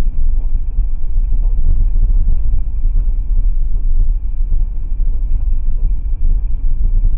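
Low, steady in-cabin rumble of a 2017 Toyota 4Runner crawling along a bumpy dirt road, the tyres and suspension knocking lightly over the ruts. It is picked up by a budget dash cam's built-in microphone, so it sounds dull, with no treble.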